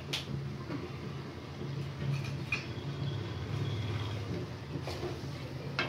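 A spoon stirring boiled chickpeas in a metal kadai, with soft scraping and several sharp clinks against the pan, over a low steady hum.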